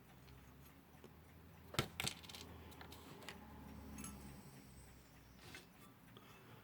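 Small metal clock parts clicking and tapping as they are handled and fitted together, with two sharp clicks in quick succession about two seconds in and fainter ticks and handling noise around them.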